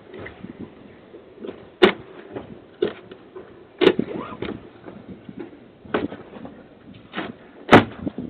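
A front door being forced with a large screwdriver: sharp, irregular knocks and bangs of the tool against the door and frame, about six, the loudest near the end, with scraping and rustling between, heard through a doorbell camera's microphone.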